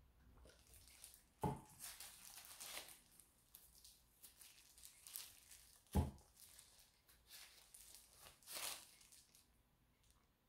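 Quiet crinkling of a plastic table sheet and disposable plastic gloves as dye is squeezed from plastic squeeze bottles onto a bundled shirt, with two sharp knocks, about a second and a half in and again about six seconds in, of a dye bottle handled on the table.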